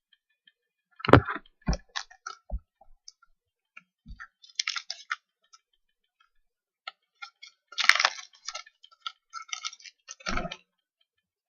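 Trading cards being handled on a table: a few sharp taps as cards are set down, and short bursts of card stock sliding and rustling against each other.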